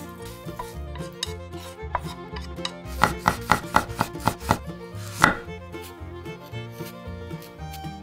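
Kitchen knife cutting cherry tomatoes on a wooden cutting board: a quick run of knocks on the board about three seconds in, then one more a moment later, over light background music.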